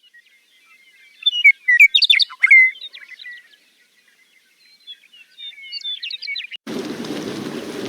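Birds singing: a run of high chirps and short trills, loudest about two seconds in. Near the end the birdsong cuts off abruptly and a steady rushing noise takes over.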